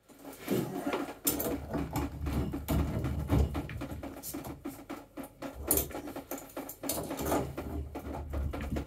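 Irregular clicks, scrapes and rustles of water pump pliers working on a brass drain-off valve at the base of a hot water cylinder, with body movement close to the microphone.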